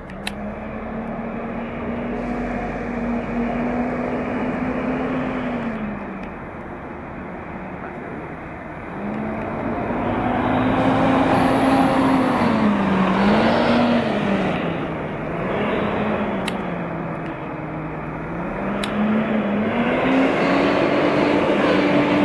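Volvo B7TL double-decker bus pulling away under power, its engine drone with the vacuum-cleaner-like 'hoover' whine rising and falling as it changes gear. The pitch climbs, drops sharply about five seconds in, wavers up and down several times in the middle, then rises and holds near the end.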